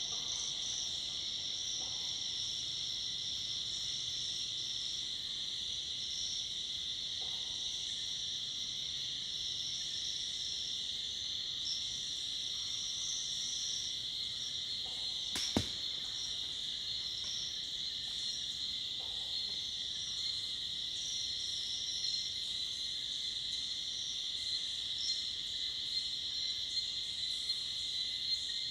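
Dense evening insect chorus of crickets and cicadas: a continuous high shrill with a higher pulsing trill layered above it. A single sharp click sounds about halfway through.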